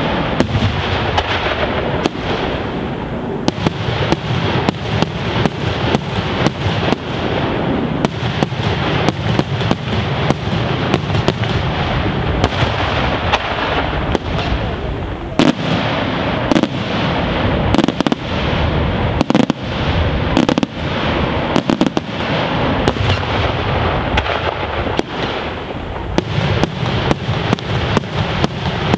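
Daytime aerial fireworks barrage: a dense, continuous run of shell bursts and crackling reports overhead, with no pause and sharper single bangs standing out here and there.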